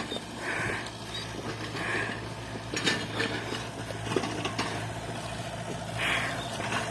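Backhoe's diesel engine running steadily, with a few scattered clicks and short rustles over it.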